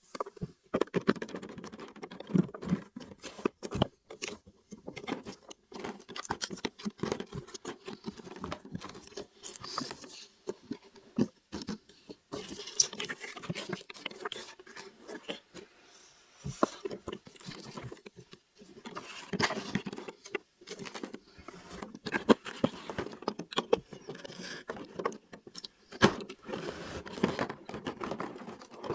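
Small plastic toy pieces and packaging being handled close up. Many quick clicks, taps and scrapes come in irregular clusters.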